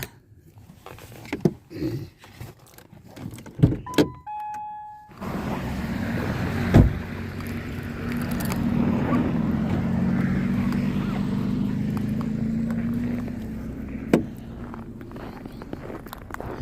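Keys jangling and a few clicks, then a short stepped electronic beep about four seconds in. After that comes steady street traffic, with a car engine passing close and swelling for a few seconds, and a sharp knock twice.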